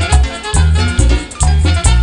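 A tropical Latin dance band playing live, with a heavy bass line pulsing in a steady rhythm under percussion and horns.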